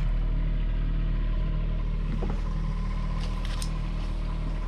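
Kubota U10 mini excavator's engine running steadily, with a few light clicks about three seconds in.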